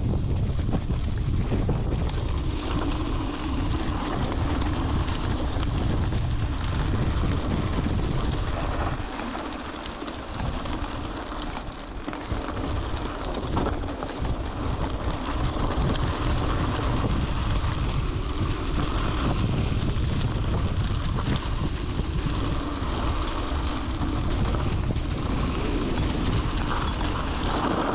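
Wind buffeting the microphone of a camera riding on a mountain bike, with the rumble of the bike and its tyres rolling over the trail; it eases for a few seconds about a third of the way in.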